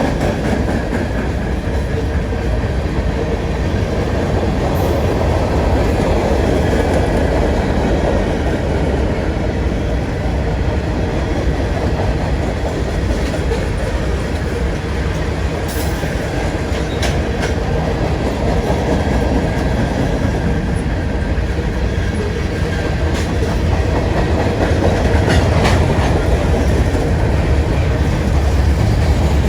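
Freight train cars rolling past on the rails: a loud, steady rumble and rattle of wheels on track, with a few sharp clicks about halfway through.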